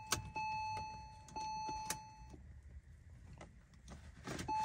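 Electronic warning beeps in the car, tones just under a second long repeating with short gaps, then stopping about halfway through. A few sharp clicks come with them, and the engine does not crank.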